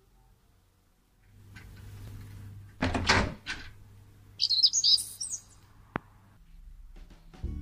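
A door clacks as it is unlatched and opened about three seconds in, then a bird chirps in a quick high run for about a second. Music starts near the end.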